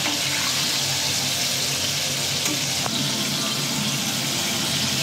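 Sunflower oil sizzling and bubbling steadily in a wok as flour-coated chicken wings deep-fry.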